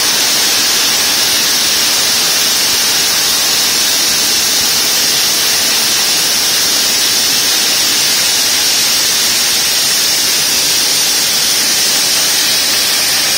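Large diamond-segment circular blade of a QSQ-2200/2500 multiblade block cutter sawing through a stone block under a water spray. It makes a loud, steady rush of noise with a strong high-pitched edge.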